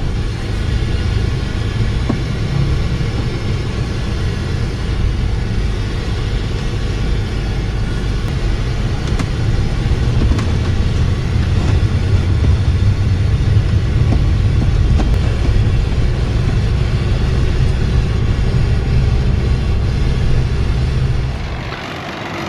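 Steady low road and engine rumble of a motorhome driving on the highway, heard from inside, dropping away near the end.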